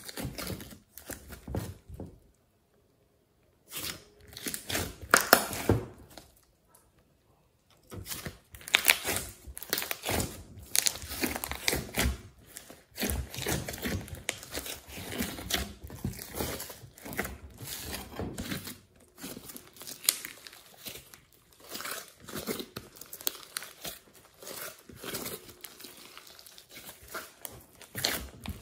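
Hands kneading, squeezing and stretching glossy slime: irregular wet clicks, crackles and squelches. The sound drops out completely for about a second, a little over two seconds in.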